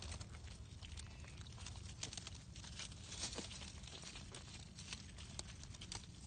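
Wet dead leaves and mud being pushed aside by hand over a shallow muddy pool, giving scattered light crackles and clicks.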